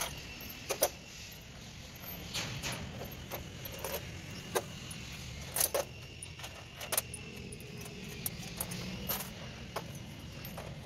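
Bolts and small steel parts of a ZF bus gearbox clinking and clattering irregularly as they are handled and set down, over a faint steady high tone.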